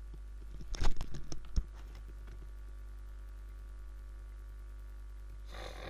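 Steady low electrical hum from the recording setup. About a second in there is a quick cluster of sharp clicks and knocks, and just before the end a brief rush of noise.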